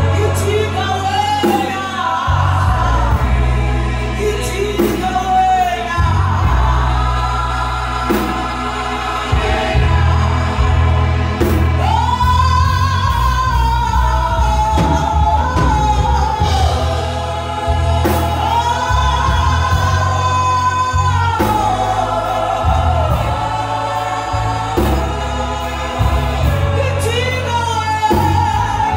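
Gospel worship group singing in harmony into microphones, a lead voice carrying the melody over the others, accompanied by a keyboard holding sustained low bass notes that change every few seconds.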